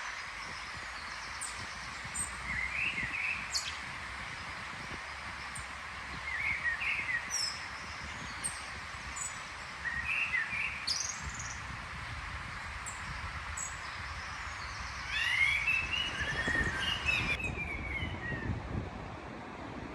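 A songbird singing in four short phrases of quick chirping, sliding notes and high squeaks, a few seconds apart, the last phrase the longest and loudest, over a steady background hiss. The recordist takes the singer for a blackbird, though he is not sure.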